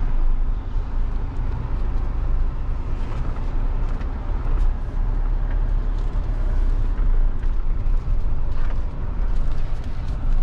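Mahindra Thar's turbo-diesel engine running in four-wheel-drive low, heard from inside the cabin as a steady deep rumble while the SUV crawls over a dirt track, with a few light knocks.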